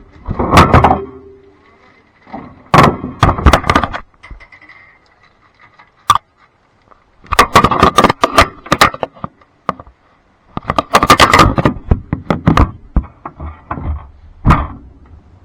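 Blanco dishwasher running, with bursts of clattering and knocking every few seconds and quieter gaps between.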